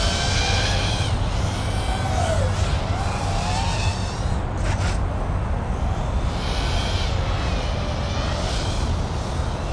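Racing quadcopter's brushless motors (Foxeer Datura 2206 2700 kV on 5-inch props) whining, the pitch rising and falling with the throttle, over a steady low rumble.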